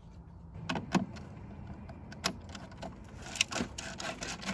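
Sharp metallic clicks and taps of a driver with a Torx T25 bit being worked in the single screw that holds the tail light housing on the car's rear door frame. There are a few clicks about a second in and a quicker cluster near the end.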